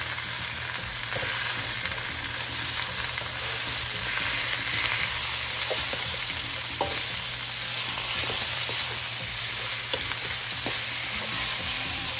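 Sliced beef sizzling in a hot oiled metal wok with garlic, stirred with a wooden spatula that knocks on the pan a few times.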